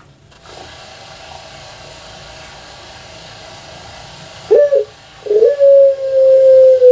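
Puter pelung (Barbary dove) cooing: after a few seconds of faint hiss, one short note, then a long, loud, drawn-out coo held on one pitch.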